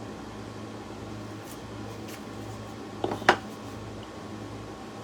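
Painter's tape and a wooden board being handled: two quick knocks, a fraction of a second apart, about three seconds in, over a steady low hum.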